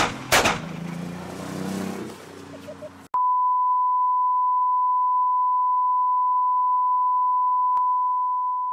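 Two sharp knocks and outdoor noise, then after a sudden cut about three seconds in a steady 1 kHz test-tone beep from a colour-bar test card, one unbroken tone.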